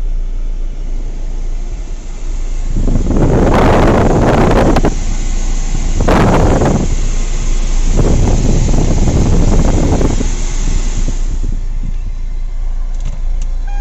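Hyundai Creta 1.6 turbodiesel automatic SUV moving off, heard from inside the cabin: a steady low hum with engine and road noise swelling three times, about three, six and eight seconds in.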